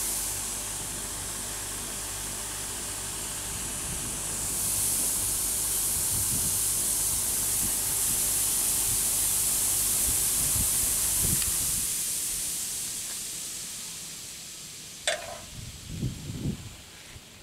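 Bench grinder running, its spinning wheel giving a steady high hiss over the motor's hum. About twelve seconds in the motor is switched off and the wheel spins down, the hiss fading. Near the end comes a sharp metal clink, then a few dull knocks.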